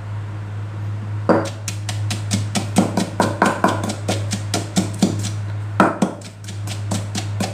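A pestle pounding a paste of shallots, garlic and chili in an earthenware mortar. It starts about a second in and keeps up a fast, even rhythm of about five knocks a second over a steady low hum.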